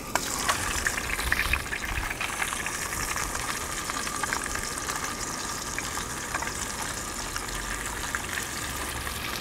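Whole cornstarch-coated sand sole sizzling in hot oil in a skillet, setting off as the fish goes into the pan: a steady hiss with scattered small crackles.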